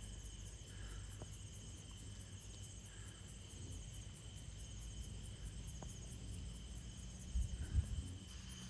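Insects chirping: a steady high-pitched pulsing, about four to five pulses a second, over a constant high buzz.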